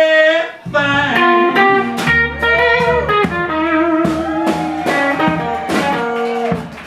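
Live blues band: a long held sung note ends about half a second in, then a box-bodied electric guitar, upright bass and drums come in playing together, with guitar lines over a walking bass and drum hits.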